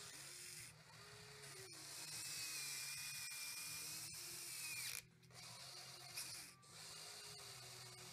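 Small electric pump and valves of a scale RC hydraulic excavator whining as the boom and bucket dig, the pitch rising and falling with the load. The whine briefly drops away about five seconds in, then resumes.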